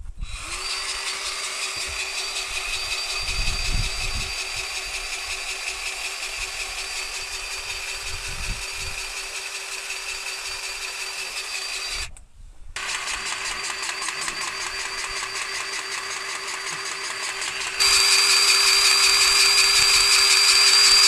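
Battery-powered grease gun motor whining steadily while it pumps grease into a fitting. It stops briefly about twelve seconds in, then runs again and gets louder near the end.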